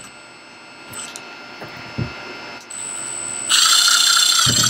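Cordless drill/driver spinning up to drive a screw into a plastic pulley mount on a kayak deck: a steady motor whine starts about three and a half seconds in, after a few small handling clicks.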